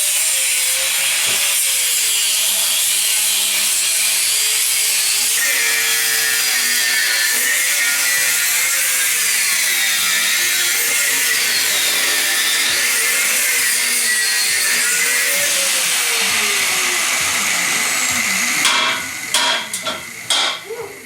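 Angle grinder grinding steel: a loud, steady hiss with a motor whine that dips and recovers over and over as the tool is pressed into the work. Near the end it stops, and there is a quick run of metallic knocks.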